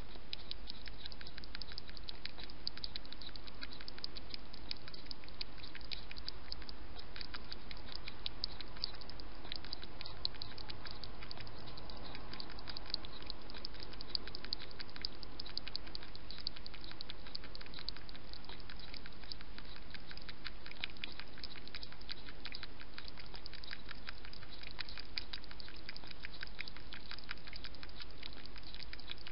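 Wild hedgehog feeding at a bowl, making a rapid, unbroken run of small mouth clicks.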